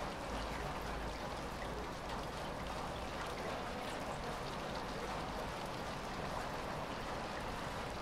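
Light rain falling steadily: an even hiss of rainfall with scattered small drop ticks.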